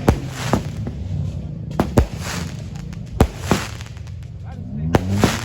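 Fireworks going off: about eight sharp bangs at irregular intervals, some followed by a short hiss.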